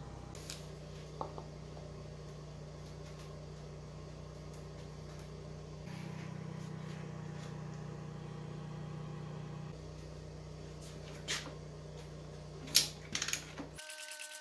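A steady low hum with a few light clicks and knocks of hand work on an engine, including one sharp metallic knock near the end; in the last moment it switches to a steady sound with several held tones.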